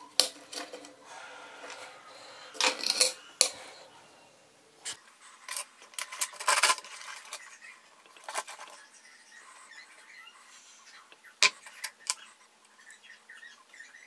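Heavy sterling silver chain bracelet being handled on a wooden bench: a sharp click just after the start as the metal box clasp is closed, then irregular clinks and rattles of the silver links and sharp taps as the bracelet is set down.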